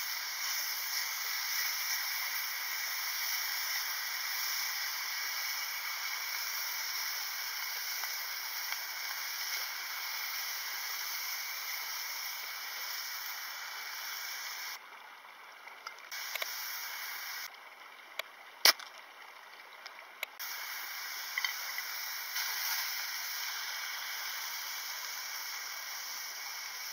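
Beef slices sizzling in a frying pan over a single gas burner, a steady hiss. The hiss drops away twice a little past the middle, with a few sharp clicks, the loudest about two-thirds of the way through.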